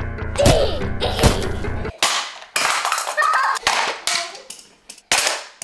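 Background music that cuts off about two seconds in, followed by about half a dozen sharp plastic clacks and knocks from the toy playset's launcher, track and die-cast toy trucks and tanks, each dying away quickly.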